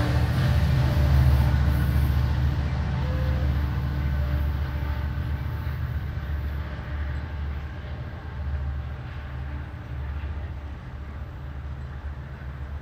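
Rumble of a train going away down the line, a low rumble that slowly dies down.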